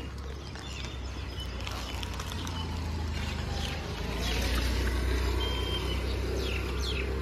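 Street ambience: a steady low rumble of road traffic that swells about halfway through as a vehicle passes, with short high bird chirps over it in the second half.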